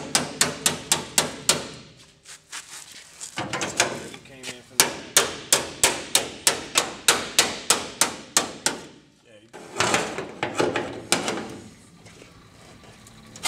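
Hammer tapping rapidly along the edge of a new sheet-steel floor pan, about four blows a second. It comes in two runs, pausing about two seconds in and stopping about nine seconds in.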